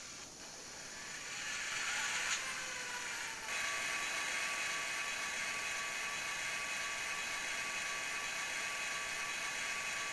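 Digitrax SDH164D sound decoder in an HO-scale locomotive playing an EMD SD40-2 diesel engine sound through the model's small speaker. The engine sound builds up, and from about three and a half seconds in it settles into a steady idle with a high whine held over it.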